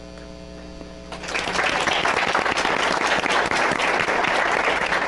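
Audience applauding, starting about a second in over a low steady electrical hum.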